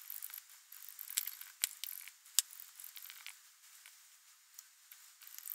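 A sponge loaded with nail polish being dabbed repeatedly onto a plastic phone case over paper towels: a faint, irregular run of small soft taps and crackly rustles.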